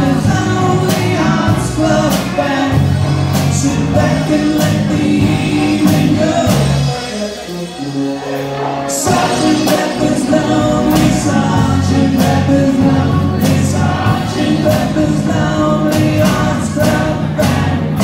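Live rock band playing electric guitars, drum kit and keyboard, with a lead vocal and harmony singing. The band thins out briefly about seven seconds in, then the drums and full band come back in.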